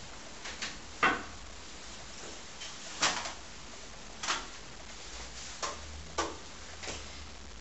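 Several short, sharp knocks and clicks at irregular intervals, the loudest about a second in and another about three seconds in.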